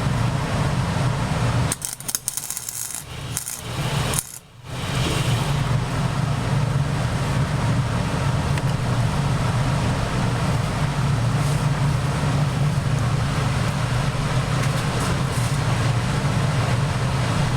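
Welding arc on the Peerless transaxle, crackling and buzzing steadily. It stops and starts fitfully about two seconds in, then runs steadily again from about four and a half seconds in.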